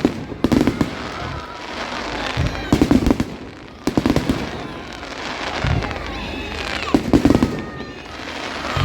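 Fireworks display: clusters of sharp bangs and rapid crackling, coming in bursts every couple of seconds.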